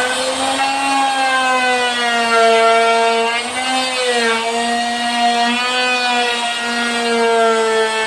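Electric wood router running at high speed, its motor whine sagging and recovering in pitch as the bit cuts into wood, with a marked dip about four seconds in.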